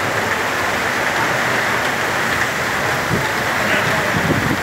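Heavy rain pouring down in a storm, a loud steady hiss.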